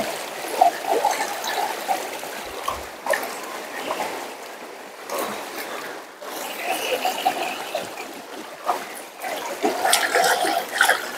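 Rice being washed by hand in water to rinse out the starch: water sloshing, splashing and trickling, coming and going in uneven spurts with small clicks of grains and pot.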